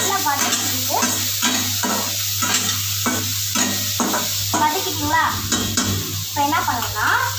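Onions and tomatoes sizzling in oil in a stainless steel kadai while a metal ladle stirs and scrapes the pan, about two strokes a second.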